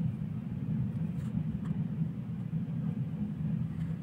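Steady low rumble of a freight train's tank wagons rolling past on the rails, with a few faint clicks.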